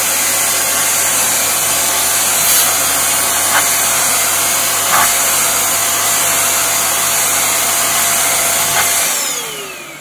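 Kitfort KT-509 upright vacuum cleaner running at full suction with a steady whine while its nozzle draws dust off a computer case's mesh panel, with a few brief clicks. About nine seconds in it is switched off and the motor winds down, the whine falling in pitch.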